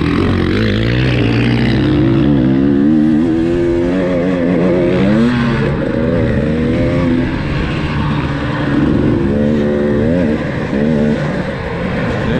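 KTM 300 TPI two-stroke single-cylinder dirt bike engine under hard riding, its pitch climbing and dropping over and over as the throttle is opened and rolled off.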